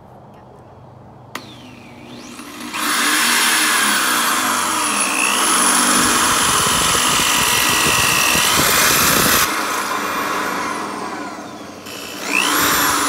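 DeWalt electric drill with a twist bit boring through a metal mounting plate. The motor speeds up about three seconds in and runs loudly for several seconds, its pitch dipping and rising as the bit bites. It stops, then runs again briefly near the end, rising and falling in pitch.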